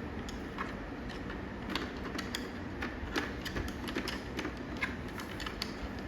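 Hard plastic helmet parts being handled and fitted, giving irregular light clicks and taps, several a second.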